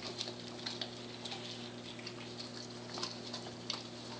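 American Staffordshire Terrier chewing and gnawing on a raw turkey, faint irregular wet clicks and ticks of teeth and jaws on meat and bone, over a steady low hum.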